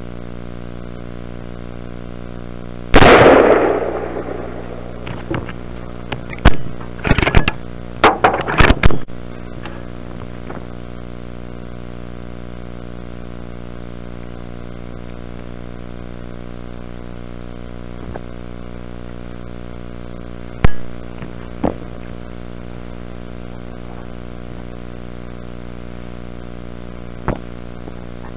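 A single loud rifle shot from a 6.5 Creedmoor Ruger American about three seconds in, its report dying away over a second or so, followed a few seconds later by a quick run of sharp clicks and clacks. Another short, sharp crack comes about twenty seconds in. A steady droning hum runs underneath throughout.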